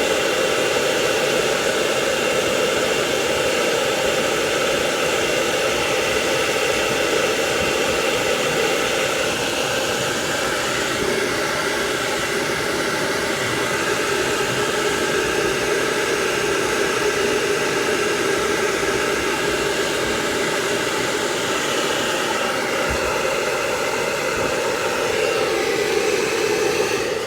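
Hair dryer blowing steadily: a constant rush of air with a faint motor whine, switched off at the end.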